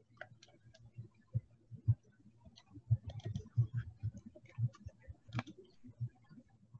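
Irregular clicking of a computer mouse and keyboard, several clicks a second, many with a dull thump.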